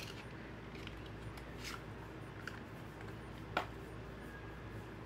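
Cosmetic stick's packaging being worked open by hand: a few scattered rustles and sharp clicks, the sharpest about three and a half seconds in.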